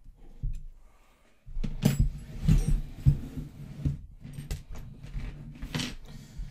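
Small homemade jeweler's lathe's Z carriage mechanism being cycled by hand through its lever and pusher-rod linkage: a dense run of metal clicks, clacks and rattles, starting about a second and a half in.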